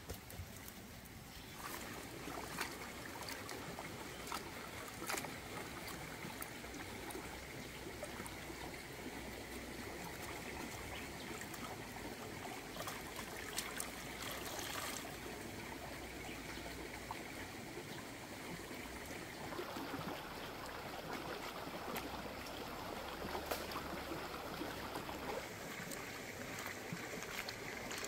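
Shallow stream running over rocks, with irregular splashes and drips as lettuce is rinsed by hand in the water.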